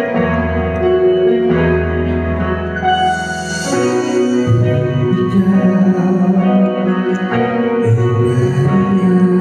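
Karaoke backing track playing over a bar's speakers: sustained keyboard and organ chords over a bass line.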